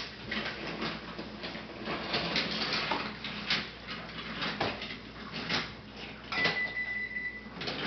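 Toy trains and wooden track pieces clattering on a wooden train table as a toddler handles them: an irregular run of clicks and knocks. Near the end, a short, steady, high beep sounds for about a second.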